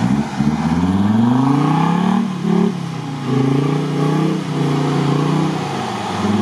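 Off-road 4x4's engine revving hard under load in mud, its pitch climbing over the first two seconds, dropping briefly, then rising again and held.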